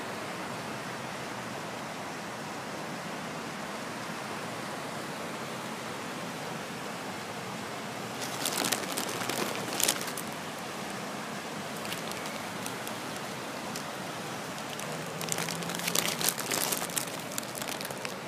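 Steady outdoor hiss, broken by two short runs of crackling clicks: one about halfway through, the other a couple of seconds before the end.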